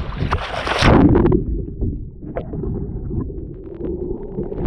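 A swimmer plunging into the sea with a loud splash in the first second. The sound then turns muffled, heard from under the water surface, until the head comes up again near the end.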